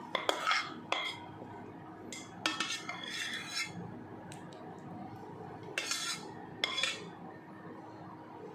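A spoon scraping and clinking against a nonstick pan while thick cooked spinach is stirred and scooped, in several short bursts with one longer scrape in the middle.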